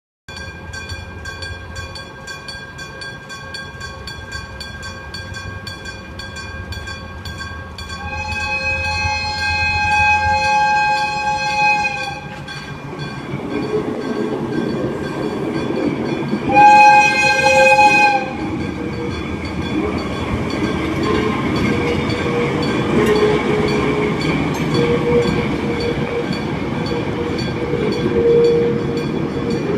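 Electric-gong railway crossing bell ringing steadily with even repeated strokes. A diesel locomotive's horn sounds a long blast about 8 seconds in and a shorter one near 17 seconds. From about 13 seconds the locomotive and the train it hauls rumble past over the rails while the bell keeps ringing.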